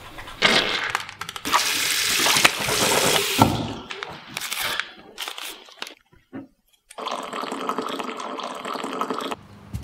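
Rough, rushing scrubbing noise of teeth being brushed for about three seconds, then broken rustling and a short silence. Near the end comes a steady pour of water into a ceramic mug for about two seconds.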